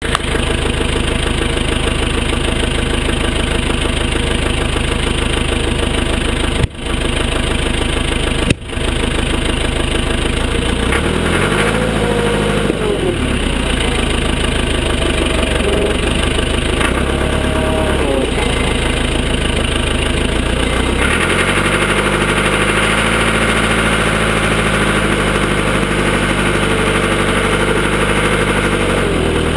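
Cat 416 backhoe loader's diesel engine running steadily, revving up and easing back down twice as the machine is worked.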